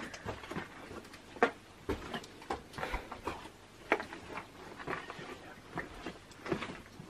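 Footsteps on a cave's walkway and steps, an uneven run of short knocks about two a second.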